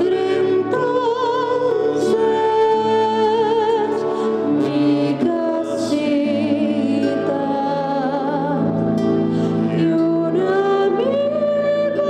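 Live song: a woman singing with strong vibrato to acoustic guitar accompaniment.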